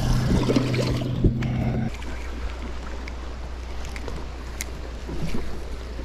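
Steady electric motor hum aboard a bass boat that cuts off suddenly about two seconds in and gives way to a lower steady hum. Wind buffets the microphone throughout, and a few knocks and splashes come in the first second and a half.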